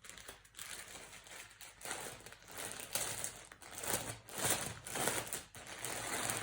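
Crinkling and rustling of plastic packaging and clothing being handled, in irregular bursts of varying loudness.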